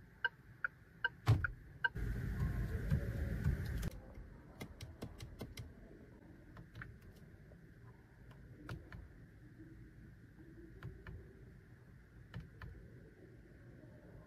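Steering-wheel control buttons of a Geely Xingrui (Preface) clicking as they are pressed and scrolled: a quick run of about six clicks about five seconds in, then single clicks spread out after it. Before that there is a short series of about six electronic beeps, then a two-second rush of noise that stops abruptly about four seconds in.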